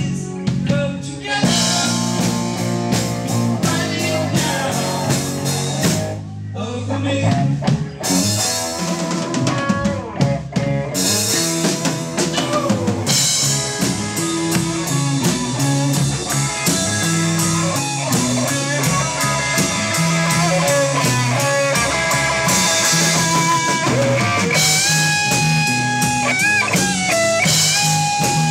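Rock music with electric guitar and drum kit. Near the end a guitar line holds long notes with pitch bends.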